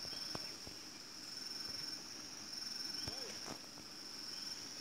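Steady high-pitched drone of forest insects, with a few faint clicks and a brief snatch of low voices about three seconds in.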